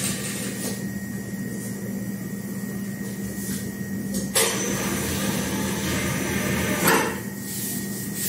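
Electric dough sheeter running as puff pastry dough is rolled thin between its rollers, with a steady motor hum and a few sharp clicks from the machine. About four seconds in it gets louder for a couple of seconds as the conveyor belt and rollers run, then drops back.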